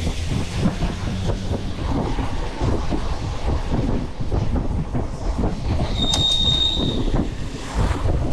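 Wind buffeting the microphone over road rumble and rattling from a scooter ridden along a street. A brief, steady high-pitched squeal sounds about six seconds in.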